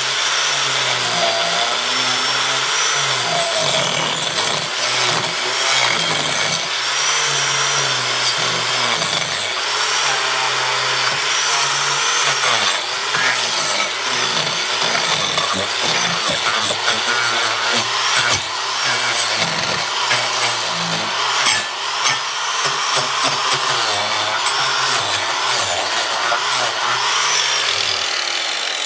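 Hand-held electric power tool cutting into a wooden log. The motor's whine rises and falls as the load changes.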